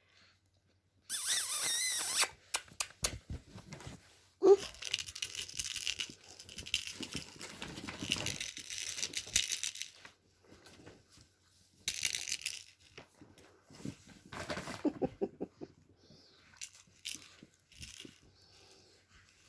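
Young puppies at play: irregular scratching, rustling and tearing noises from paws and mouths working at the floor and toys, with a sharp click about four seconds in. A short high wavering squeal comes about a second in.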